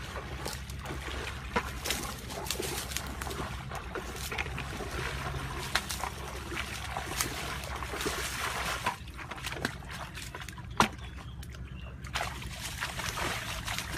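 Water sloshing and trickling as a person wades and works in shallow pond water, with scattered small clicks and one sharper click about eleven seconds in.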